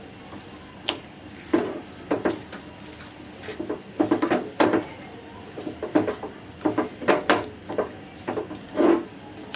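A spatula knocking and scraping against a pan in irregular strokes as thick flour halwa is stirred in its final stage of cooking.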